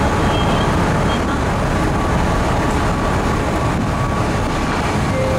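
Steady, loud rumble and rush of a moving ferry heard from its open deck: the ship's running noise mixed with wind on the microphone and the sweep of water, with no pauses.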